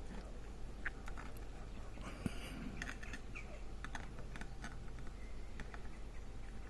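Small metal discs and spacers from a disc-detainer padlock, sticky with grease, clicking lightly as they are handled and set down: a scattering of soft, irregular ticks.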